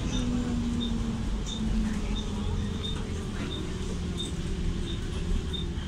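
Loud bus engine cooling fan running inside the bus with a steady low hum and a drone that sags slightly in pitch about halfway through. A short high chirp repeats about every 0.7 seconds.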